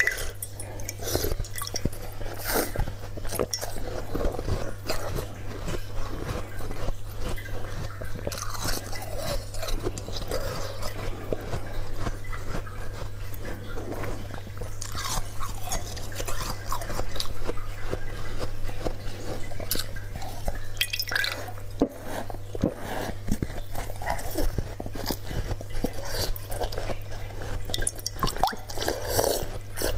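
Close-up biting and chewing of a chunk of slushy ice frozen in a water bottle: irregular crisp crunches and cracks all through, over a steady low hum.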